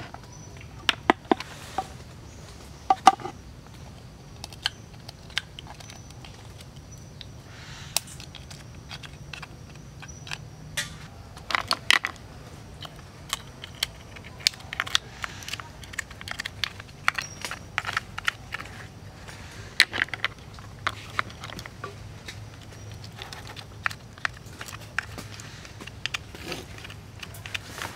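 Irregular clicks and knocks of crab shells being handled on a wooden tray, then a spoon tapping and scraping in a wooden bowl as sauce is spooned into the shells. The sharpest clicks come in the first few seconds and again about twelve and twenty seconds in.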